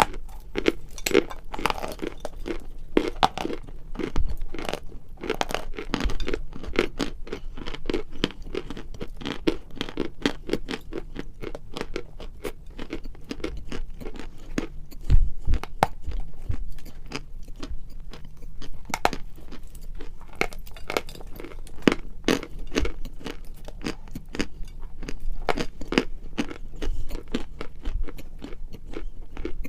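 Close-miked biting and chewing of crunchy edible chalk: a dense, irregular run of crisp crunches and cracks, with a somewhat louder crunch about halfway through.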